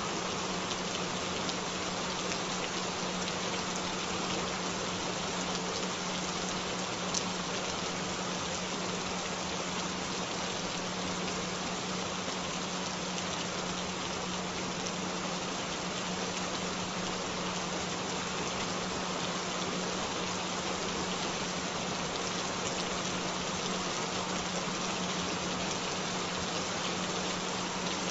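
Steady rain, an even patter of drops with no change in strength. Underneath it runs a constant low tone, a sustained frequency tone mixed in for headphone listening.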